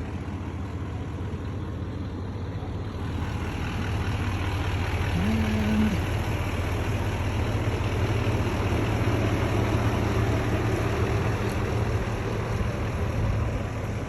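Steady vehicle engine hum with road noise, growing louder about three seconds in.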